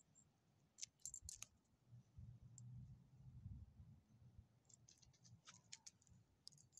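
Near silence, broken by a few faint, light clicks from a small dog moving about and sniffing on gravel. There is a faint low rumble in between.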